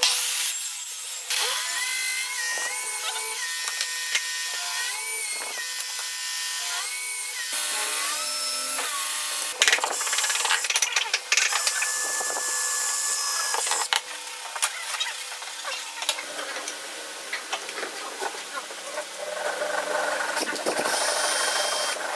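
Workshop power tools heard in turn: a miter saw cutting hardwood strips, then an electric drill boring holes through a wooden strip. The machine whine rises and falls several times, with a few sharp knocks.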